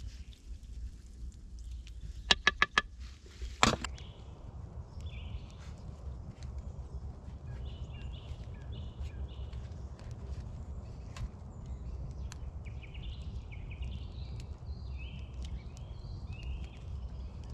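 Woodland dusk ambience: birds chirping repeatedly over a steady low rumble, with a few faint ticks. About two seconds in, a quick run of five ringing metal clinks from a utensil against cookware, then a single sharper knock.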